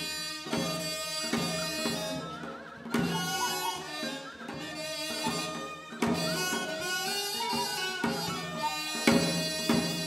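Korean traditional music for the janggu drum dance: a reedy wind instrument plays a sustained melody that slides and wavers in pitch, over occasional sharp drum strokes.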